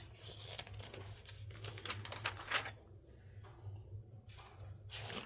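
Quiet rustling of paper with scattered light clicks and taps: a glossy magazine being handled and its pages turned.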